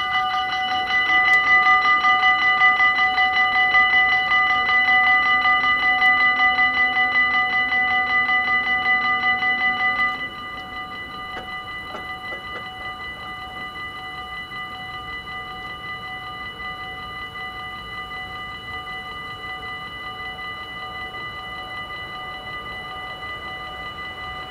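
Dutch level-crossing warning bell ringing rapidly and steadily, a fast repeated metallic ding made of several fixed tones. About ten seconds in, once the barrier is down, it drops abruptly to a quieter ringing that carries on while the crossing stays closed.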